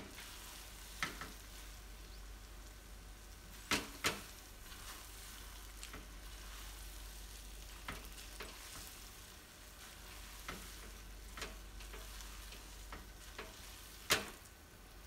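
Silicone turner stirring and tossing fried rice vermicelli with diced potato and carrot in a non-stick wok, over a faint steady sizzle. Several sharp knocks of the turner against the pan, the loudest about four seconds in and near the end.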